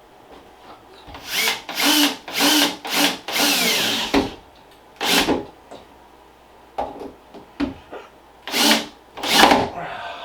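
Power drill running in a series of short trigger bursts, its motor pitch rising and falling, the longest burst lasting about a second, while fitting a lever door handle.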